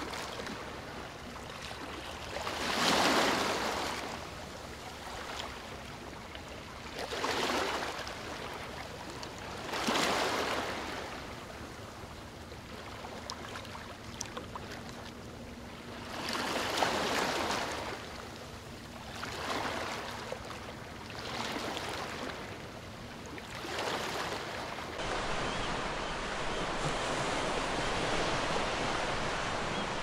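Small waves breaking and washing up on a sandy beach, each surge swelling and fading every few seconds. About 25 seconds in it turns to a steady, unbroken rush of surf.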